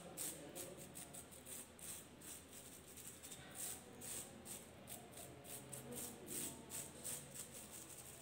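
Paintbrush bristles dabbing and scrubbing paint onto bubble wrap: a faint, rhythmic scratchy swish of bristles on the plastic bubbles, about two to three strokes a second.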